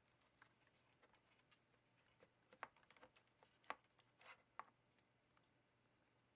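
Faint, irregular small clicks and taps from handling laptop parts, with a few louder clicks in the middle.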